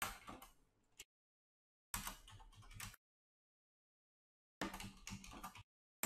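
Typing on a computer keyboard: rapid key clicks in short bursts about a second long, separated by silence.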